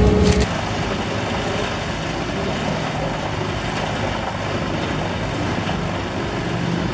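A loud wood-crushing sound breaks off about half a second in. Then the heavy diesel engine of a Bruks wood chipper, a Volvo, runs steadily.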